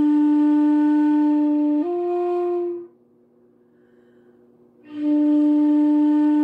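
Shakuhachi flute played slowly. A long held note steps up a little about two seconds in and stops, and after a pause of about two seconds a second long held note begins, breaking into a quick flicker of note changes near the end.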